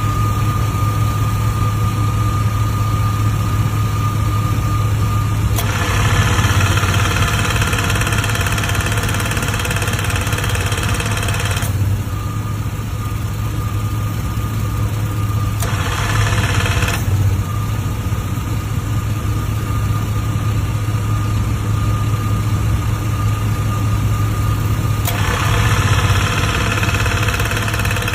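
Rotary vane compressor running with a steady low hum and a harsh, higher-pitched noise that comes in for several seconds, drops out, returns briefly, then comes back near the end. The noise is the sign of a compressor fault.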